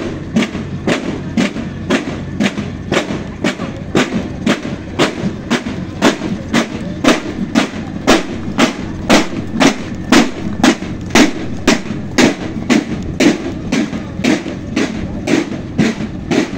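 Marching snare drums of a naval drum corps playing a steady march beat, about three strokes a second.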